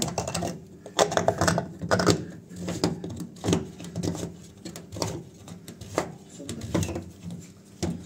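Plastic drain-pump filter cap of a front-loading washing machine being turned by hand in its housing: an irregular run of clicks and knocks, plastic on plastic, several a second.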